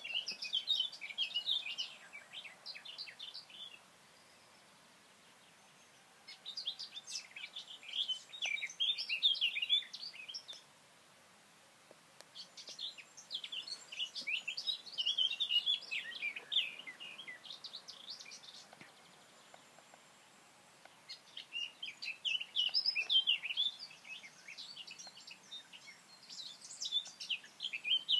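A songbird singing long phrases of rapid high notes, four phrases each lasting several seconds, with short pauses between them.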